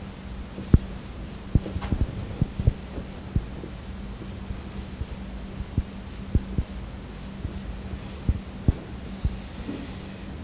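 Dry-erase marker writing on a whiteboard: irregular taps of the marker tip against the board and short scratchy strokes, with one longer stroke near the end. A steady low hum runs underneath.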